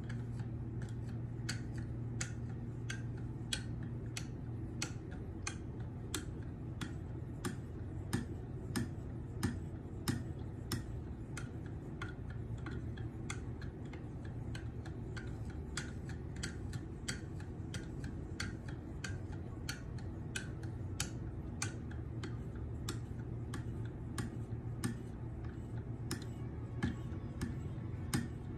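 Knife edge being honed on a KME guided sharpener with a 1-micron (16,000 grit) abrasive: light, repeated strokes, each with a small click, about two a second.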